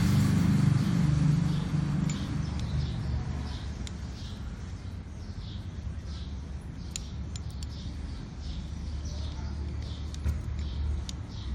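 Low rumble of vehicle traffic, louder at first and easing off over the first couple of seconds, with short high chirps like small birds repeating about twice a second and a few faint clicks.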